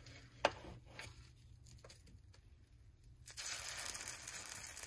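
A few light clicks, then hot oil in a frying pan starts to sizzle about three seconds in, where egg-battered potato fritters (torreznos) are frying.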